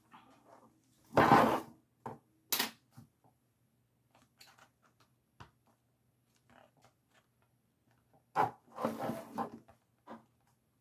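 Craft materials being handled at a work table: two short bursts of rustling, about a second in and again near the end, with a sharp click between and a few faint taps.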